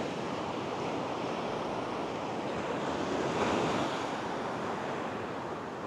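Ocean surf washing onto a beach: a steady rush of breaking waves that swells a little about halfway through.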